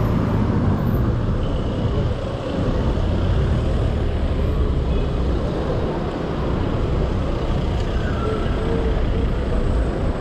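Steady rumbling wind and road noise from riding a Xiaomi Mi 1S electric scooter through city traffic, with no clear breaks or sudden sounds.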